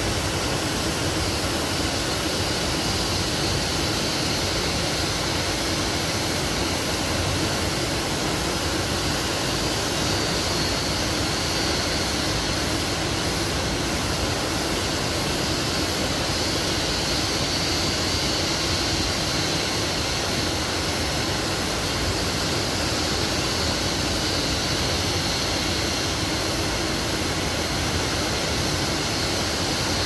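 Forest waterfall: water falling with a steady, unbroken rush.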